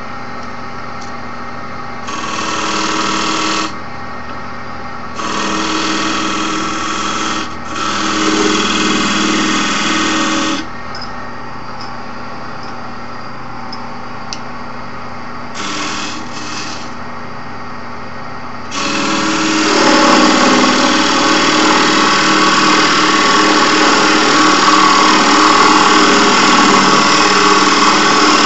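Wood lathe motor running steadily while a turning tool cuts into a spinning piece of hard oak. There are four short cuts of one to three seconds each, then continuous, louder cutting from about two-thirds of the way in.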